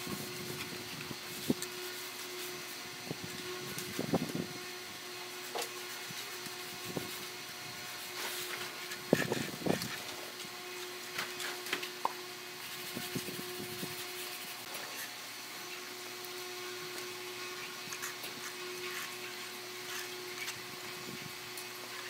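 Hand trowel and float scraping and tapping on wet sand-and-cement mortar in short, scattered strokes, over a steady background hum.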